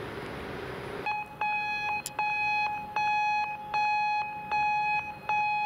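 Railway crossing warning signal sounding: a repeating electronic beep that starts about a second in, each tone about half a second long, coming a little faster than one a second.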